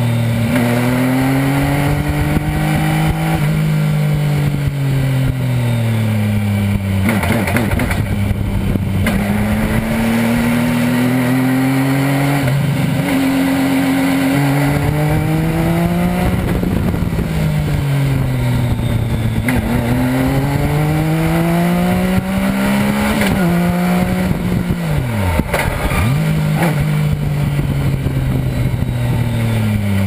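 Legend car's Yamaha air-cooled inline-four motorcycle engine driven hard around a track, heard from inside the cabin: the engine note climbs and falls in long sweeps as the car accelerates and slows, with three brief sudden drops in pitch.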